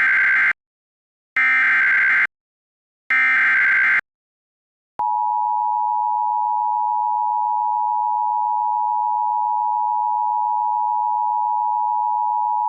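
Emergency Alert System opening sequence: three short digital SAME header data bursts, the first already under way. About five seconds in, the steady two-tone EAS attention signal (853 and 960 Hz) begins. Together they mark the start of an alert, here a Severe Thunderstorm Warning.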